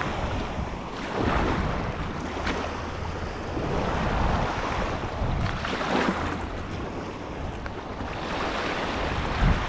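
Lake Ontario waves washing in and breaking on the shore in swells every second or two, with wind rumbling on the microphone and a low thump near the end.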